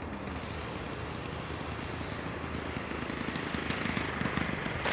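Engine of a 1:5 scale radio-controlled SAI KZ II model plane throttled back for landing, growing steadily louder as the plane comes in and touches down on the runway.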